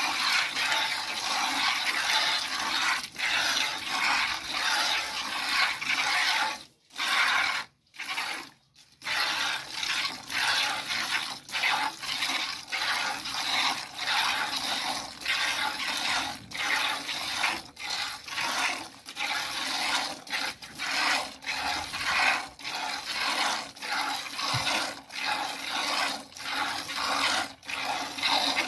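Hand milking a cow: milk squirting from the teats into a plastic bucket as rhythmic hissing squirts, about two a second. The rhythm stops briefly twice, about seven and nine seconds in.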